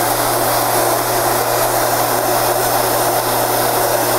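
Handheld electric heat gun running steadily, blowing hot air with a constant low motor hum under the rush of air, as it heats reflective vinyl film over rivets.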